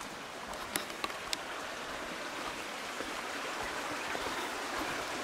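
Creek water running steadily, slightly louder toward the end. A few light clicks about a second in.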